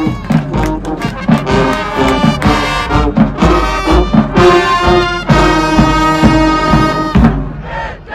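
High school marching band playing its field show: brass (trumpets, trombones) over a drumline, in a loud, punchy rhythm that stops short about seven seconds in.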